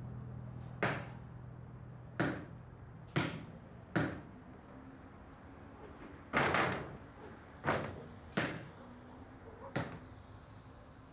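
A basketball bouncing on a hard tiled court: eight separate thuds at uneven intervals, the one about six and a half seconds in louder and longer than the rest.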